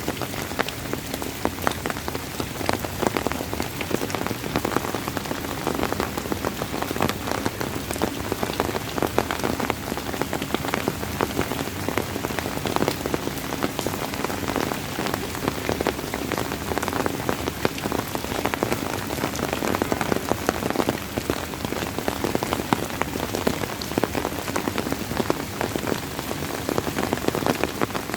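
Steady rain falling on a surface, a dense patter of many individual drops hitting.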